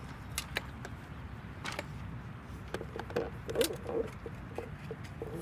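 Scattered light clicks and taps of hardware being handled, over a steady low rumble.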